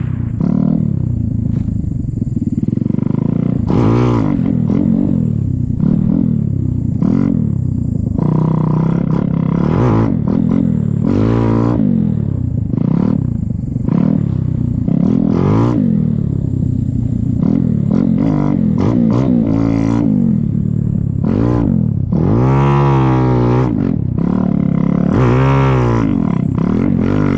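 Yamaha YZ450 snow bike's single-cylinder four-stroke engine under load in deep powder, revving up and falling back again and again, every second or two, as the throttle is worked.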